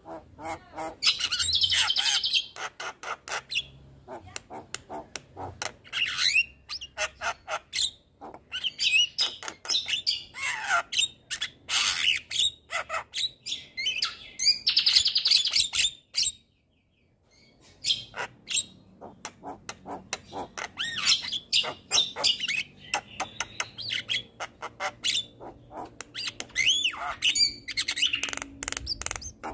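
Javan myna singing a long, varied song of rapid clicking rattles, harsh squawks and short whistled notes, breaking off for about a second and a half just past halfway.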